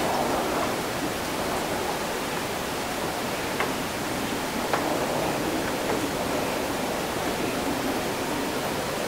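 Steady hiss of an after-rain city ambience, with a couple of faint ticks near the middle.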